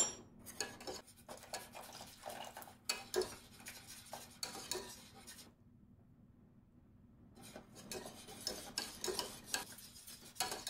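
Wire whisk stirring sauce in a stainless steel pot, with quick metallic clicks and scrapes of the wires against the pot, as cornstarch thickens the sauce on its way back to a boil. A loud clink comes right at the start, and the whisking stops for about two seconds midway before it resumes.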